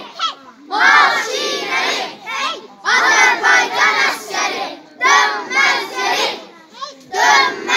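Young girls chanting loudly in unison, shouting out lines of a patriotic march verse in phrases of a second or two with short breaks between them.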